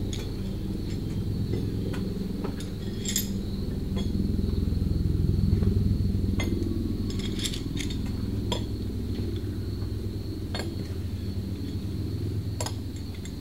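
Steel bent anchor bolts (L-bolts) clinking against each other as they are carried and set out, a scattered clink every second or two, over a steady low rumble.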